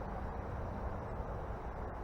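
Steady outdoor background noise: a low rumble with an even hiss above it, and no distinct events.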